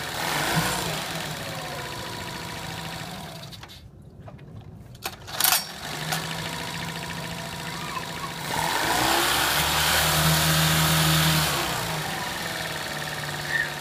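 Mid-1980s Honda 7.5 hp four-stroke outboard running, now healthy after its no-spark ignition fault was fixed. The engine dies away about four seconds in, restarts on one pull of the recoil starter, is revved up on the tiller throttle for about three seconds, then drops back to idle.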